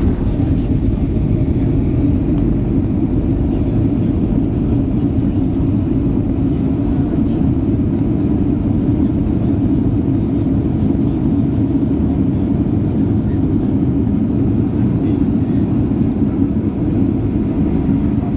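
Steady low rumble inside the cabin of a Boeing 737-800 rolling along the ground after landing, its CFM56 engines running evenly with no change in thrust.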